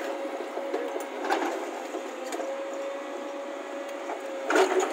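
Crawler excavator at work, running with a steady whine, with scattered knocks and a louder clatter near the end.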